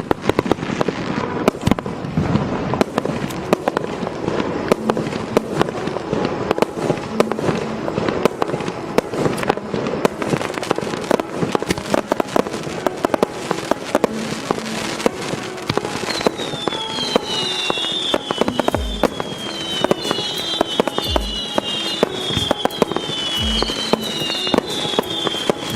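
A firework going off without a break: dense crackling and sharp bangs throughout. From about two-thirds of the way through come repeated falling whistles and deep thuds about every two seconds.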